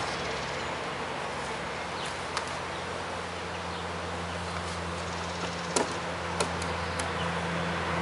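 Honeybees buzzing in a steady hum around an opened beehive, with a few sharp knocks and clicks from the hive's wooden cover and boxes being handled.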